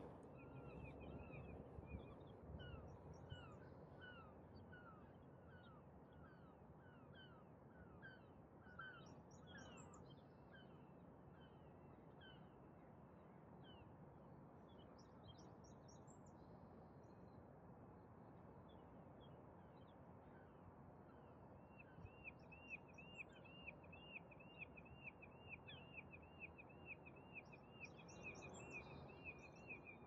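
Faint dawn ambience: a low, steady hum of distant city noise with songbirds calling over it. A string of short repeated chirps and high twitters comes in the first third. About two-thirds in, a bird starts a fast run of repeated arched notes, about two a second.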